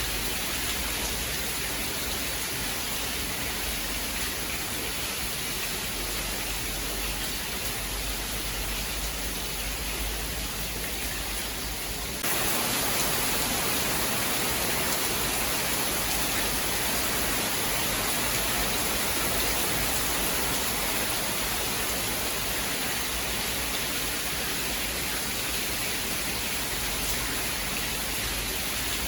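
Steady rain, an even hiss with no thunderclap. About twelve seconds in it jumps abruptly to a louder, brighter hiss and stays there.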